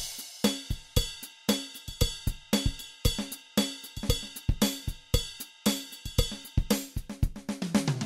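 Background music with a steady drum-kit beat of kick, snare and cymbals, about two beats a second.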